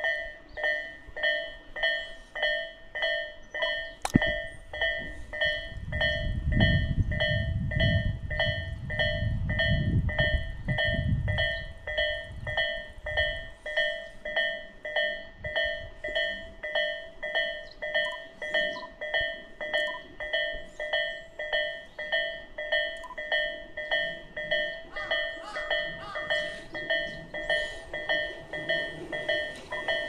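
Japanese level-crossing electronic warning bell ringing steadily at about two strokes a second. A low rumble swells and fades about 6 to 13 seconds in.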